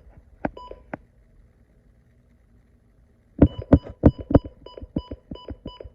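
Radio broadcast static: a couple of clicks, a quiet gap, then a rapid irregular run of sharp crackles with a faint steady high tone underneath, starting a little over halfway through.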